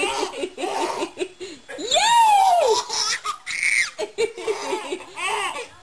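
Baby laughing in runs of quick short bursts, with a long high squeal about two seconds in.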